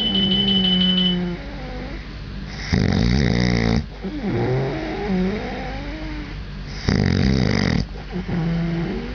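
Loud snoring: two harsh snores about four seconds apart, with wavering, whistly breaths in between. A high steady alarm tone stops about a second in.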